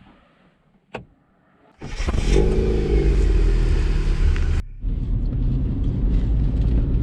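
A sharp click, then a Chevrolet Beat's engine fitted with a K&N air filter revving up loudly, rising in pitch. It cuts off suddenly and gives way to the engine running steadily under way.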